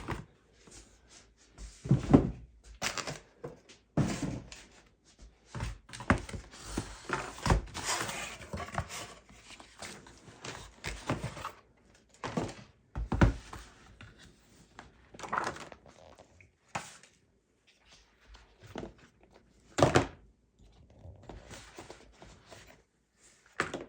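Packaging and small items being handled on a table: a string of irregular knocks and thunks, with rustling in the middle stretch.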